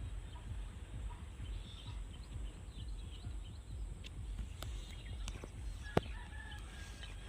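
Chickens calling in a village yard over a steady low outdoor rumble, with a few sharp clicks, the loudest about six seconds in.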